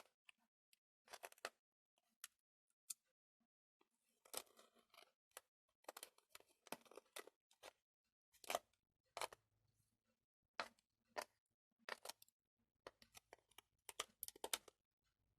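Faint, irregular sticky clicks and crackles of jelly slime with glitter and sequins being mixed and worked, with a couple of longer squishing stretches.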